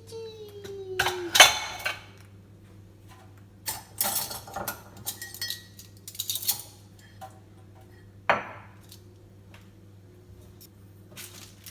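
Dishes and cutlery clinking and clattering as they are handled, in several separate bursts. A falling tone sounds in the first second or so.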